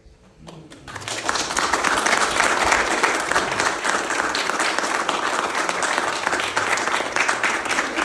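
Audience applauding, the clapping swelling up about a second in and then holding steady.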